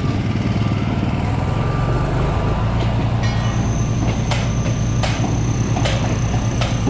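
Construction-site heavy machinery running with a steady low drone. A high steady whine starts about halfway in, and four sharp knocks, roughly a second apart, land in the second half.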